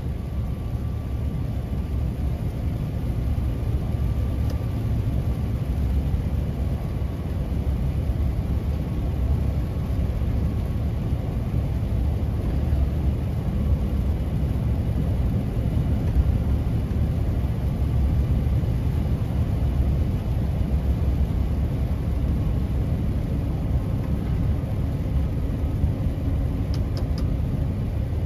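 Heavy truck's diesel engine running steadily under a load of about 27 tonnes of brick, heard from inside the cab as a continuous low rumble with road noise, and a few faint ticks near the end.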